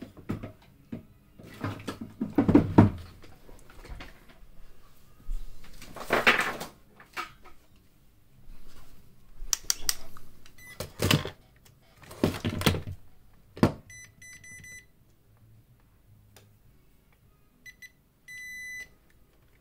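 Clattering and rustling as parts are handled, then high-pitched electronic beeps: a quick run of short beeps, and near the end a few short beeps followed by a steady beep about a second long.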